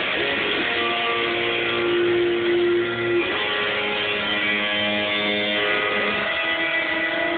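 Electric guitar music from a Stratocaster-style guitar, a dense hazy tone with long held notes that change about three seconds in and again near six seconds.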